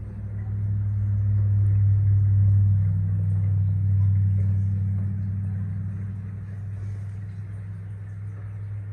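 Low, steady electrical hum from a reef aquarium's circulation pumps and powerheads. It grows louder over the first two seconds and eases off in the second half.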